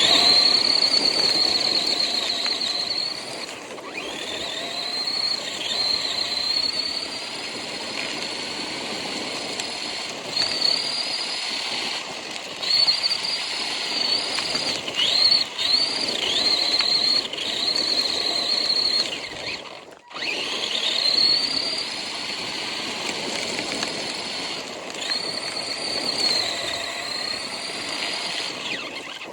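Small RC car's motor whining high as it drives, the pitch rising each time it speeds up and dropping as it eases off, over a steady rush of drivetrain and wheel noise. The sound briefly cuts out about twenty seconds in.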